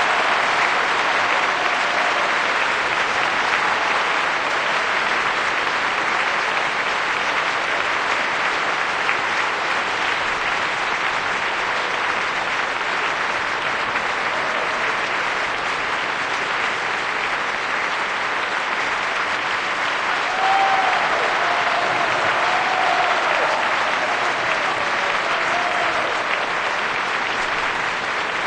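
Audience applauding steadily at length, with a few faint cheers or whistles about two-thirds of the way through.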